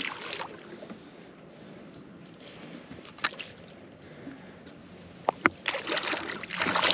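A hooked rainbow trout splashing at the water's surface, then a loud burst of splashing and sloshing near the end as the landing net scoops up the thrashing fish. A few sharp knocks come before the netting.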